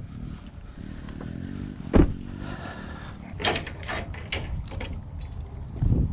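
A Chevrolet pickup truck door slamming shut with one sharp thud about two seconds in, followed by a few lighter clicks and knocks.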